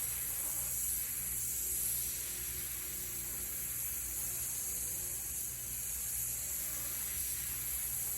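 Steady high hiss of compressed air from a paint spray gun, with a faint low hum underneath.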